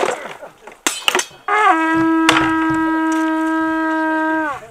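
A couple of sharp knocks of weapons striking shields, then a horn blown in one long steady note for about three seconds, dropping in pitch as it dies away: the signal horn ending the sword-and-shield bout.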